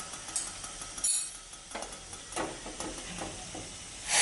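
A few light metal clinks and knocks of a steel pot and utensils being handled, over a faint steady hiss from the pot of just-boiled ajwain-leaf water.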